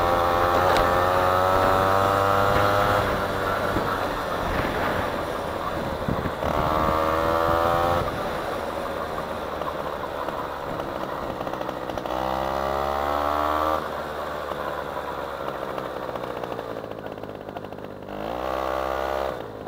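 A 2003 LRX scooter's 50cc two-stroke 1E41QMB engine pulling under way. It revs up in four bursts of throttle, at the start, about six seconds in, about twelve seconds in and near the end, and its note climbs with each burst and drops back between them. Road and wind noise from riding runs under it.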